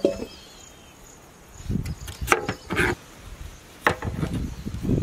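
A knife slicing through raw potatoes and knocking down onto a plastic cutting board: a few sharp chops at irregular intervals, with soft handling noise between them.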